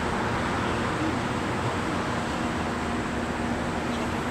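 Steady urban road-traffic noise: an even rushing hum of passing vehicles.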